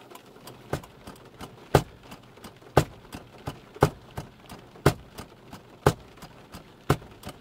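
A car's turn-signal flasher clicking steadily: a loud click about once a second, with a softer click between each pair.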